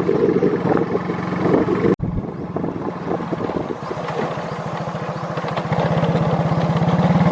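An engine running with a steady, even beat, cut off briefly about two seconds in, then growing louder and steadier near the end.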